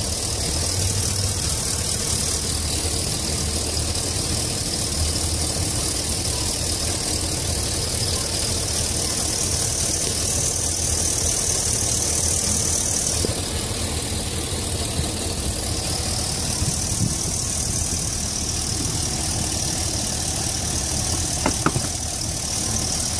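Pickup truck engine running steadily at normal idle, heard from close over the open engine bay. A couple of brief knocks near the end.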